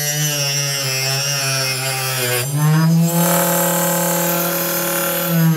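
Homemade table saw driven by a 12 V 775 DC motor, its blade cutting a PVC sheet: a steady whine with a rasping cut. The pitch dips a little, then rises again about two and a half seconds in as the blade comes free of the sheet.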